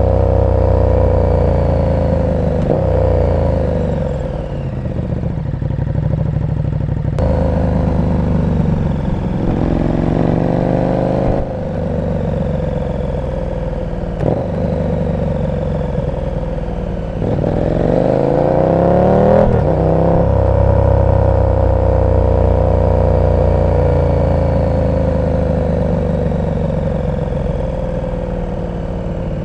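KTM 1290 Super Duke R's V-twin engine through an aftermarket exhaust while riding in city traffic. The revs fall off as it slows in the first few seconds, then rise twice in quick acceleration, at about ten and about eighteen seconds, with steadier cruising in between.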